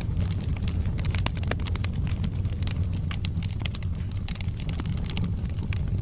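Wood fire burning in a fireplace: a steady low rumble of flames with frequent sharp crackles and pops from the burning logs.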